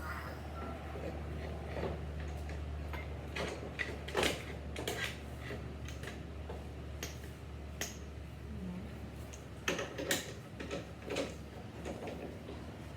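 Scattered light clicks and knocks of hard objects being handled, over a steady low hum.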